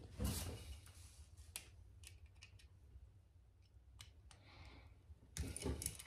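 Faint handling noise from working electrical wires into a WAGO 221 lever connector: a brief rustle, a few sharp isolated clicks, and more rustling and clicking near the end.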